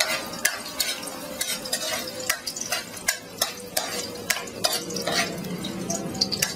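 Garlic sizzling in hot oil in a pan while it is stirred. A cooking utensil scrapes and taps against the pan about three times a second.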